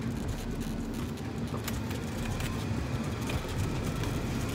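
Golf cart driving along a paved path: a steady low rumble from its running gear and tyres, with scattered light clicks and rattles.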